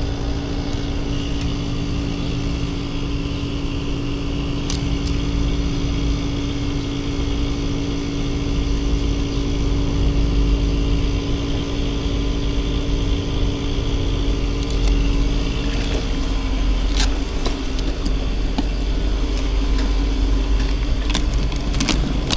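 Car driving: steady engine and road drone with a steady hum that changes pitch about 16 seconds in, and a few light clicks and rattles near the end.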